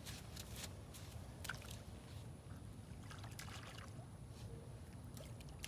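Faint shallow water sloshing and trickling, with a few small sharp clicks over a steady low rumble.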